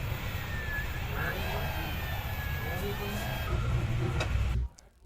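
Traffic noise: a steady low rumble with faint wavering sounds above it, cut off abruptly about four and a half seconds in.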